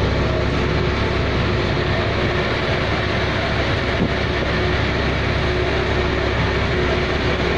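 A boat engine running steadily: a constant low drone with a steady hum above it, mixed with wind noise.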